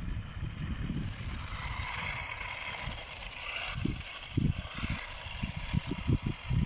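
Low, uneven buffeting on the microphone, with a run of sharp thumps in the second half. Under it, from about a second in, is the faint hiss of a Kyosho Dirt Hog RC truck's motor and tyres on the ice as it drives in the distance.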